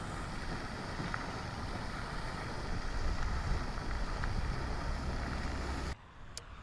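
Wind buffeting the microphone: a steady, fluttering rumble of noise that cuts off suddenly about six seconds in, leaving a much quieter background with a single sharp click.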